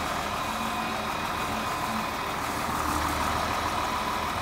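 John Deere farm tractor's engine running steadily while the tractor is driven forward.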